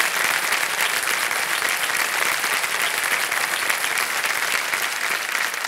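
Studio audience applauding steadily for a correct answer, a dense even clatter of many hands clapping.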